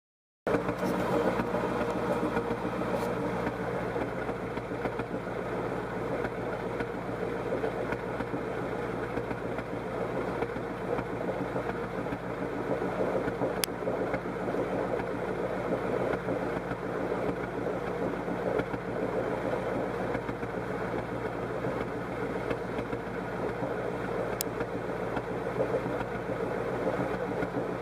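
Engine idling steadily with a misfire.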